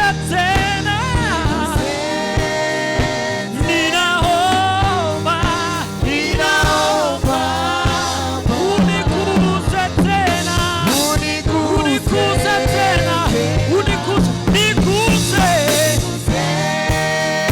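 Gospel praise song played by a band: singing over a steady drum beat and bass line.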